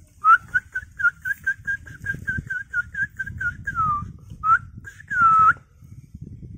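A person whistling to call a dog: a fast run of short whistles on one pitch, about five a second, then a few longer whistles, the first sliding down in pitch, the last held about five seconds in.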